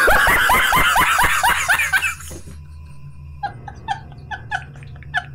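Loud laughter: a quick run of 'ha-ha' syllables falling in pitch for about two seconds, then after a short pause softer, quick, chirpy giggles.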